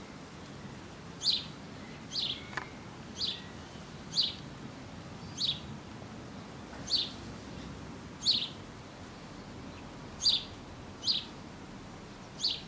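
A small bird chirping over and over: short, high calls that drop in pitch, about one a second.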